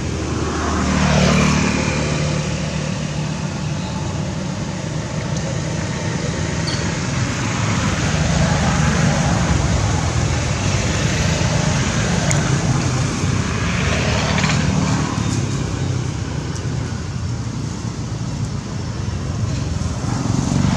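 Steady road traffic noise with a low engine hum. Vehicles swell past about a second in and again around 14 seconds.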